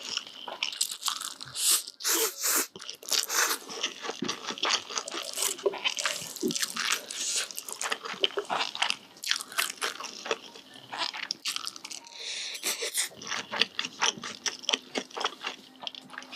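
Close-miked chewing of a big mouthful of instant noodles: a dense run of quick, wet crunching and smacking clicks.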